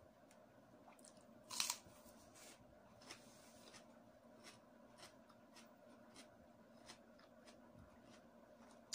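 A single crisp bite into a raw cucumber about one and a half seconds in, followed by faint crunchy chewing with small clicks about twice a second.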